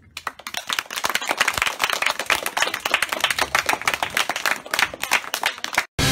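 A group of children clapping, many quick overlapping claps that build up over the first second and stop abruptly near the end.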